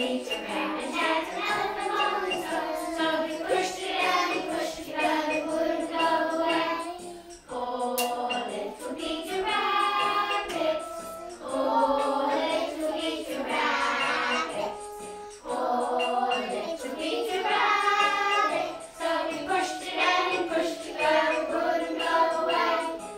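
A group of young children singing a song together in phrases, with short breaks between them.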